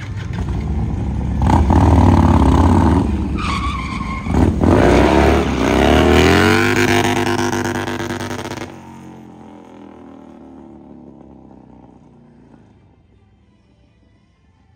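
Harley-Davidson V-twin revving hard while its rear tyre spins and skids on asphalt in a burnout donut, the engine pitch climbing several times. The sound cuts off abruptly about two-thirds of the way through, leaving only a much quieter background.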